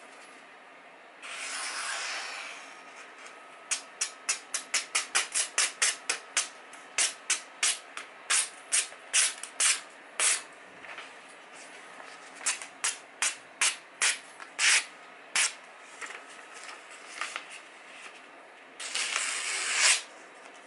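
Freshly sharpened kitchen knife slicing through magazine paper as a sharpness test, a crisp short swish with each cut, about two to three cuts a second. A paper rustle comes about a second in, and a longer, louder stretch of paper rustling comes near the end.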